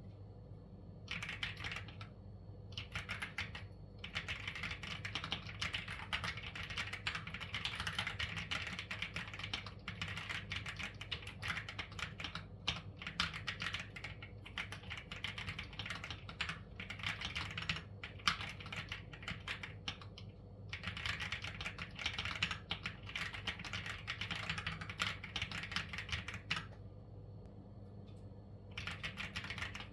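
Typing on a Keychron Q1 Max mechanical keyboard with tactile banana switches: fast, dense runs of key clicks with a few short pauses between them.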